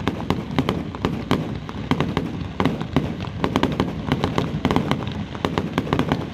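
Fireworks going off in quick succession: an irregular string of sharp cracks and pops, several a second, from small white sparkling bursts.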